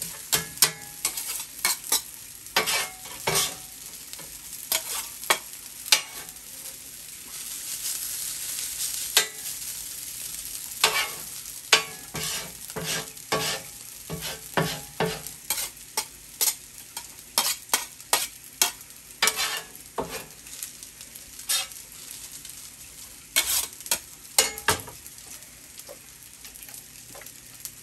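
Rice with peas and carrots frying on a hot steel flat-top griddle, a steady sizzle under many sharp clacks and scrapes as a metal spatula and a food scraper chop and turn it against the steel.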